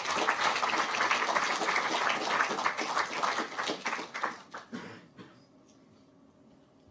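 Audience applause: many people clapping, tapering off and dying away about five seconds in.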